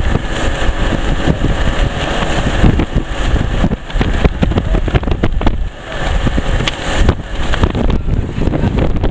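Strong wind buffeting the microphone over the steady drone of a motorboat's engine and its churning wake, with gusty swells in the rush.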